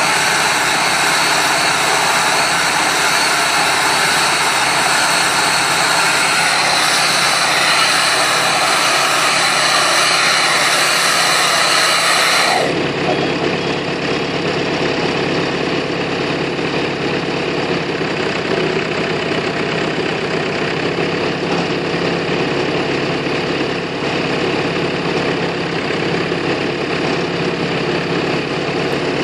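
Marshall 702 tractor engine running at a steady speed with a Kverneland bale wrapper hitched behind. About thirteen seconds in, the sound abruptly turns duller, losing its top end.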